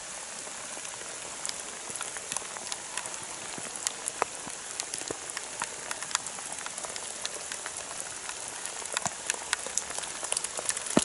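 Steady rain falling: an even hiss with many sharp drop ticks scattered through it.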